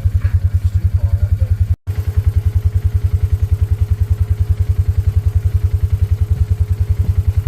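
Small engine idling steadily, a low, even chugging about ten beats a second, briefly cut off about two seconds in; a faint steady hum joins after the break.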